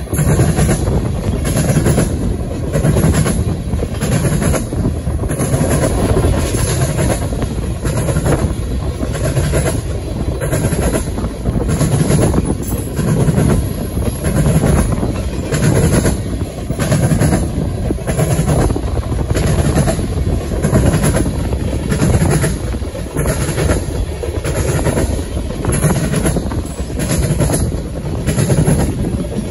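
Freight train of tank cars rolling past close by: steady rumble of wheels on rail with a regular clickety-clack as each car's wheels pass over the track.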